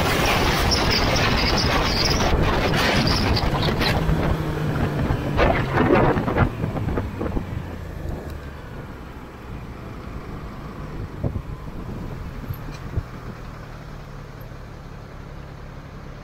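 Motorcycle riding at speed, with loud wind and road rush over the microphone, and a few short knocks about six seconds in. The rush then dies away as the bike slows and stops, leaving the engine idling with a low, steady hum.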